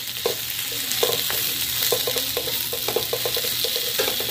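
Soya chunks and boiled raw jackfruit pieces sizzling as they fry in oil in an aluminium pot, while a steel spatula stirs and scrapes against the pot, with a quick run of taps about two to three seconds in.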